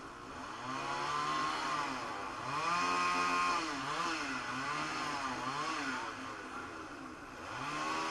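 Small petrol engines revving up and down over and over, each rise held for a moment before dropping back, with two engines overlapping.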